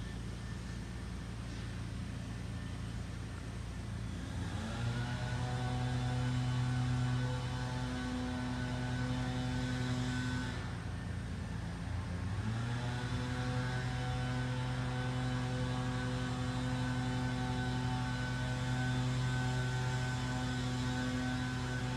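Lawnmower engine running steadily, coming up louder with a rising pitch about four seconds in, sagging briefly in the middle, then picking back up.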